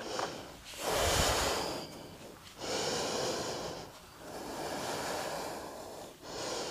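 A woman breathing deeply and audibly while holding a yoga pose. There are about four long, unpitched breaths, each lasting a second or two, with short pauses between them.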